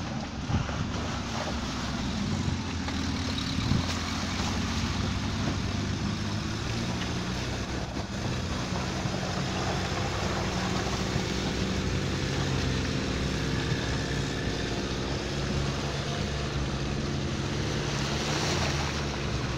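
Engine of an off-road 4x4 SUV running at low, fairly steady revs while it crawls down a steep muddy bank. There is an even rush of wind noise over it.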